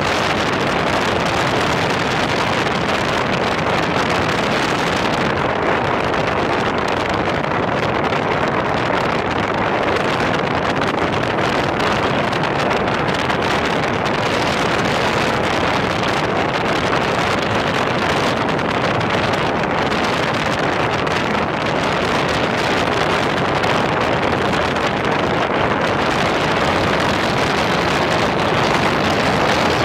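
BMW motorcycle riding along a gravel road: a steady rush of wind on the camera microphone mixed with engine and tyre noise, with no change in pace.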